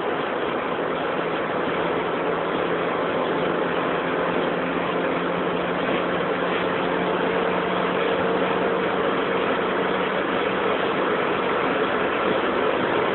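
Cabin sound of a supercharged BMW 318ti Compact's four-cylinder engine running hard at high speed, mixed with steady wind and road noise, slowly growing louder.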